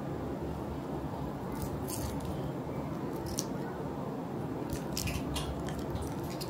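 Foil wrapper of a processed cheese portion crinkling in short bursts as it is peeled off by hand, several times, over a steady low hum.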